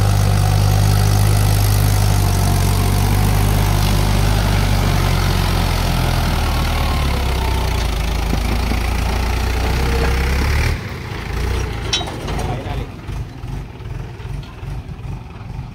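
Mahindra 475 DI XP Plus tractor's four-cylinder diesel engine running while it tows a trailed thresher, a steady low drone. About eleven seconds in it drops off suddenly to a quieter, uneven rumble.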